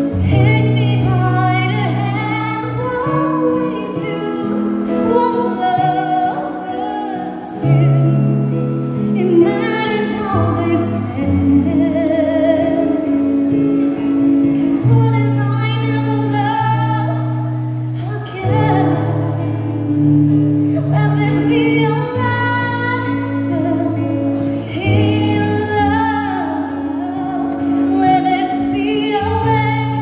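A woman singing a slow ballad live into a handheld microphone over accompaniment, with long held low notes under the melody.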